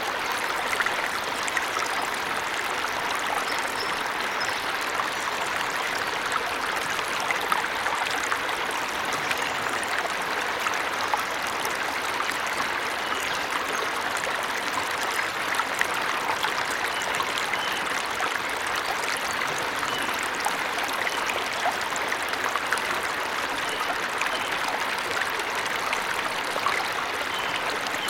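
Waterfall: a steady, even rush and splash of falling water.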